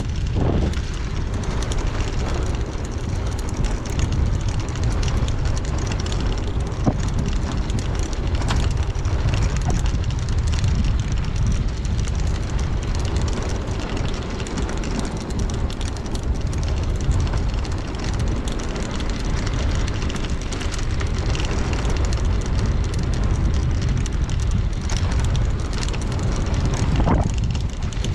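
Wind rushing over the microphone while riding a bicycle, a steady low buffeting rumble.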